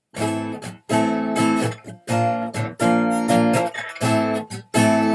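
Acoustic guitar strumming chords in a steady rhythm: the instrumental introduction to a song.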